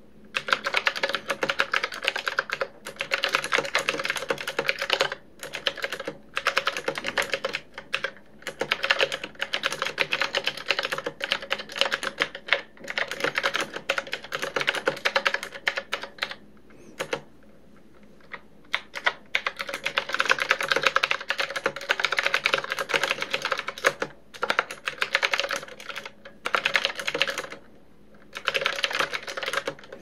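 Qwerkywriter typewriter-style mechanical keyboard being typed on: quick runs of clicking keystrokes broken by short pauses, with a longer stretch of only a few lone keystrokes a little past halfway.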